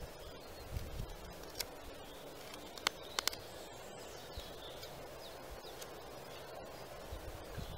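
Small wood-carving knife whittling a thin stick of green wood, with faint scraping and a few short sharp clicks of the blade cutting, the clearest cluster about three seconds in. Steady outdoor background.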